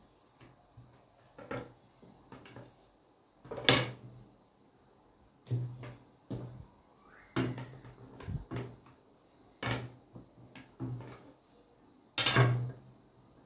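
Long thin wooden rolling pin knocking and thudding on a plastic-covered table as börek dough is rolled out, in irregular separate knocks, the loudest about four seconds in and near the end.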